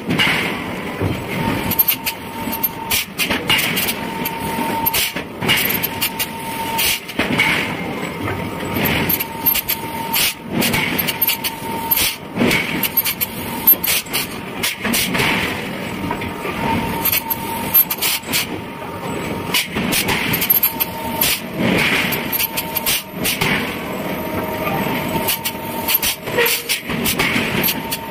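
Forge-shop noise: irregular heavy metal knocks and clanks over a steady machinery din.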